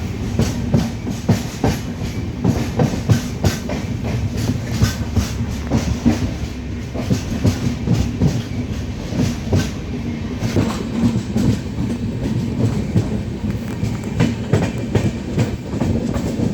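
Indian Railways train running on the track: a steady rumble with its wheels clattering over rail joints, several clicks a second.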